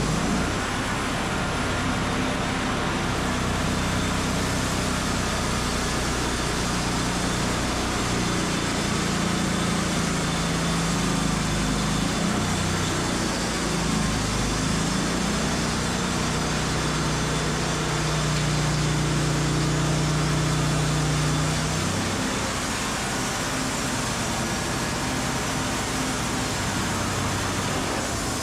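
WoodMizer LT35 band sawmill running and sawing a cherry log: a steady engine drone mixed with the hiss of the band blade. A stronger low engine tone comes in about a third of the way through and eases off about three quarters of the way through.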